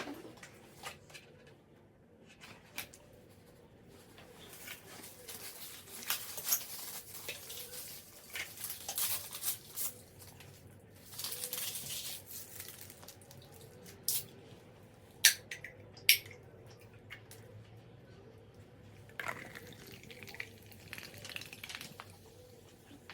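Wet, squishing food sounds of braised pork and kimchi being handled and eaten, with scattered sharp clicks of utensils against a dish; the two loudest clicks come about a second apart a little past the middle.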